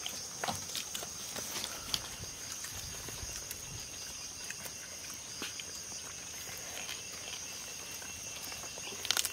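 People chewing and smacking their lips while eating duck biryani with their hands, pulling duck meat off the bone, heard as many small scattered wet clicks with a short cluster near the end. A steady high insect drone runs underneath.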